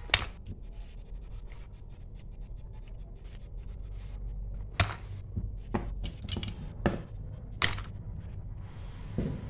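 Stationery being put into a zippered cloth pouch by hand: a small cardboard box of staple pins, a plastic glue stick and a highlighter are dropped in and knock against a metal stapler. There are about five sharp clacks, with light handling noise between them.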